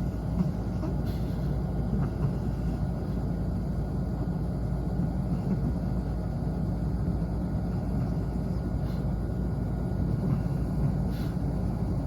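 Long-coat Chihuahua snoring in its sleep: a steady low rumble that swells slightly every few seconds.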